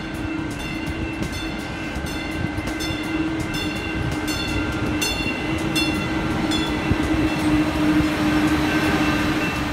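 Light-rail train running: a steady hum carrying several steady tones, with irregular sharp clicks throughout, a little louder near the end.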